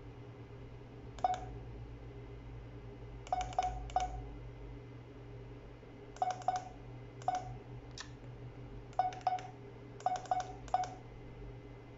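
Keypad beeps from a ZKTeco F18 access-control terminal as its keys are pressed: short, same-pitched beeps, some single and some in quick runs of two to four, as letters are typed in by pressing a key repeatedly until the wanted letter comes up.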